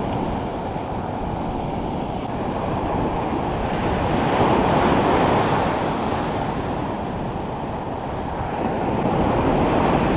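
Ocean surf breaking and washing up a sandy beach: a continuous rush of waves that swells louder twice, about halfway through and again near the end.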